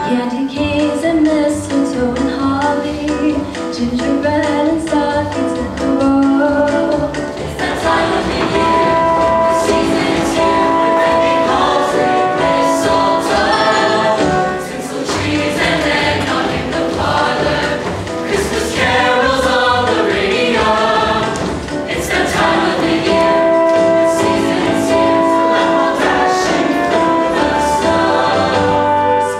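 Ensemble music with held, choir-like chords under a wavering melody line, going on without a break.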